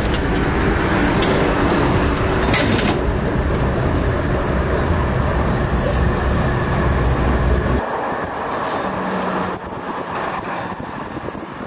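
Tram running along street rails, heard from inside the car: a steady rolling noise with a deep rumble that drops away about eight seconds in.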